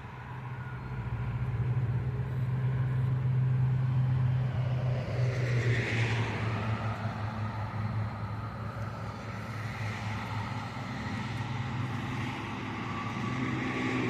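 Road traffic: a steady engine drone with passing vehicles, one swelling past about six seconds in and another near the end.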